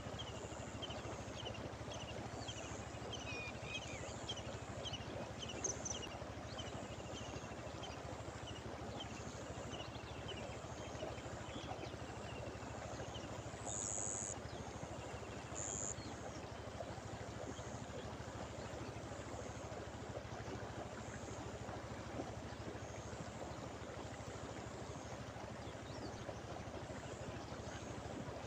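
Shallow river water rushing steadily over a run. A series of short, high, falling chirps repeats through roughly the first twelve seconds.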